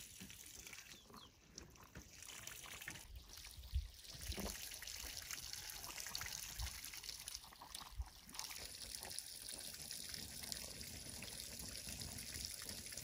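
Thin stream of water from a pipe trickling and splashing onto a muddy bank and into a shallow pond, faint and steady, with a few soft low thumps.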